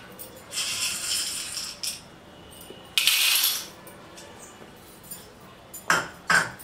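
Large sago pearls poured from a small bowl into the chamber of a Touchline hot-air popcorn maker, a rattling hiss of small hard grains falling in two pours, about half a second in and again around three seconds. Two short sharp knocks near the end.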